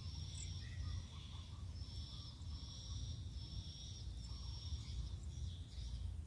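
A high chorus of insects trilling in stretches of about a second, over a low background rumble.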